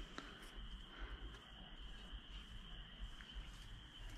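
Faint, steady high-pitched insect trill, like crickets, over a low rumble.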